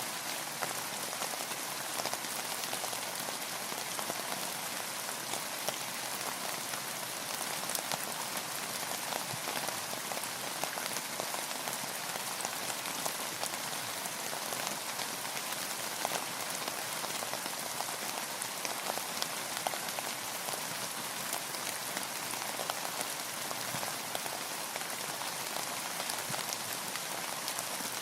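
Steady rain falling, with a dense patter of individual drops landing.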